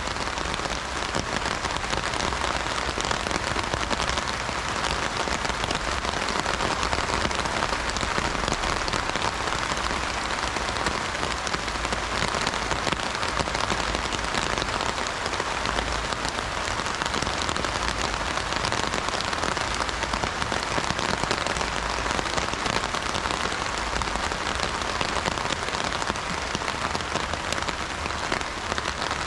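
Heavy rain drumming steadily on an umbrella, a dense patter of drops on the fabric.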